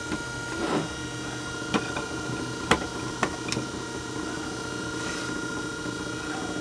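Wood lathe motor running steadily with a hum and a thin high tone. Several sharp knocks sound between about one and four seconds in as the lathe's metal tool rest is shifted into position.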